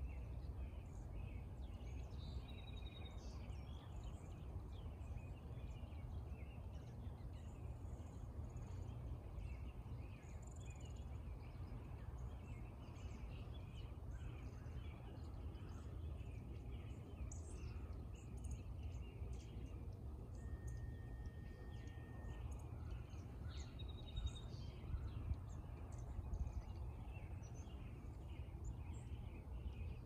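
Dawn chorus: many small birds chirping and calling, with one held whistled note about two-thirds of the way through, over a steady low background rumble.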